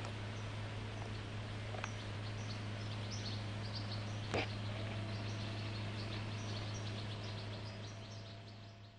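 Small birds chirping in short, repeated high notes over a steady low hum and background hiss. There is one sharp click a little over four seconds in, and the sound fades out near the end.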